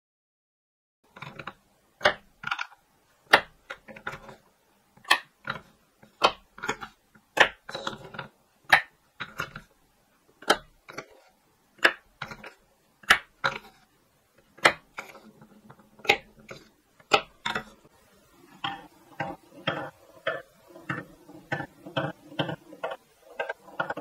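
Wooden balls knocking and clacking on wooden toys, starting about a second in: sharp single knocks, one or two a second, as balls drop through a wooden groove track and land among wooden cups and a bowl. For the last six seconds the clicks come faster and lighter over a steady rolling sound of a ball running along a wooden track.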